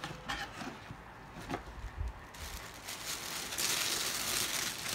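Paper wrapping rustling and crinkling as hands dig through a packed box, after a few light knocks, growing loudest in the last second or so.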